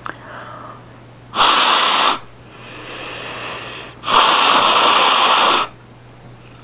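A person blowing hard by mouth through a Sunbeam drip coffee maker's water tubes to clear blocked residue: two long rushing puffs of air, with a softer breath drawn in between.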